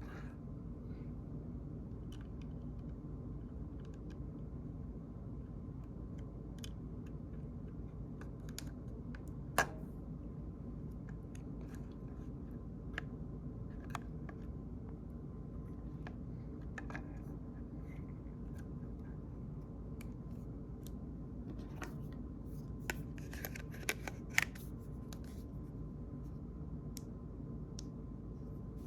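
Scattered light clicks and taps of small phone parts being handled and fitted, over a steady low hum. One sharper click comes about ten seconds in, and a quick run of clicks comes about two-thirds of the way through.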